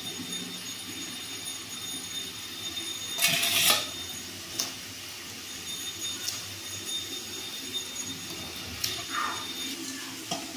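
Cauliflower being broken into florets and cut on a boti blade over a steel bowl, with clinks of the florets and blade against the steel. There is a louder burst of noise about three seconds in and a few sharp clicks after it.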